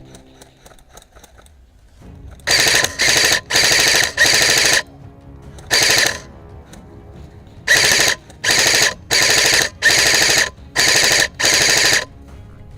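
Airsoft electric gun firing on full auto in about a dozen short bursts, each half a second or so long, with a pause of about a second after the fifth burst.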